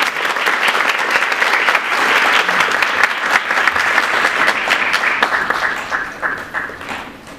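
Audience applauding steadily, then tapering off near the end.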